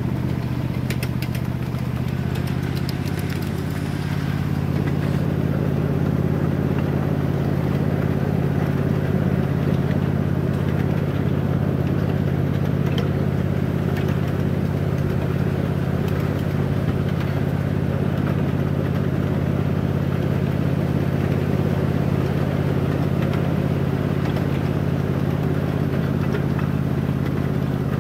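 A small engine running steadily with a constant low hum, a little louder from about four seconds in.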